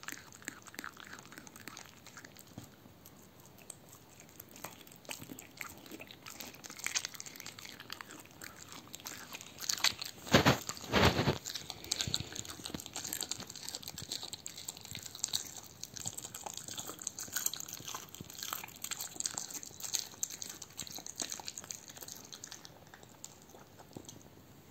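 A dog chewing and gnawing on a raw veal heart: irregular bites and mouth sounds, with a few louder bites about ten to eleven seconds in.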